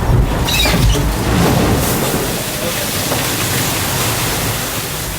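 Rushing water and wind noise aboard an IMOCA 60 racing yacht sailing fast down the waves in strong wind. A heavy rumble for the first couple of seconds eases into a steady rushing hiss.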